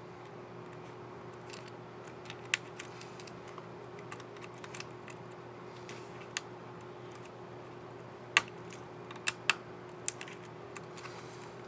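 Scattered small plastic clicks from the Asus K55A laptop keyboard as a keycap and its scissor mechanism are handled and fitted, with a quick cluster of the loudest clicks about eight to ten seconds in. A faint steady hum runs underneath.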